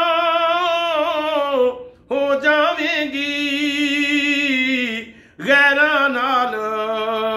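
A man singing a Punjabi ghazal unaccompanied: three long, held phrases with wavering, ornamented notes, broken by short pauses for breath about two and five seconds in.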